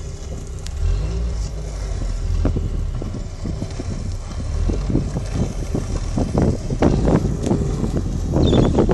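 Wind buffeting a moving microphone over a low rolling rumble, with irregular gusty thumps that grow denser and louder in the second half.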